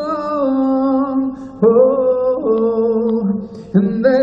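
A man singing a slow love song, holding long notes in two phrases with a short breath between them.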